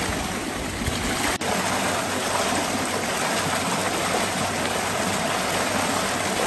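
Water pumped through a Vortex 3 Mark 4 flow form, running steadily as it spills from bowl to bowl and splashes into the tank below; the cascade stirs and oxygenates the water to dissolve the soil activator.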